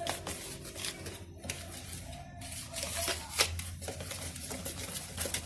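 A utensil scraping and tapping irregularly against a mixing bowl as flour is stirred into cake batter.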